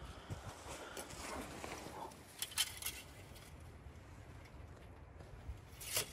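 Light handling noises: a few short clinks and rattles about two and a half seconds in and again near the end, over faint rustling. The diesel engine is not running.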